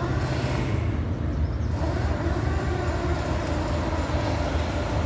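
Steady low rumble with a constant hiss over it and no distinct knocks or impacts.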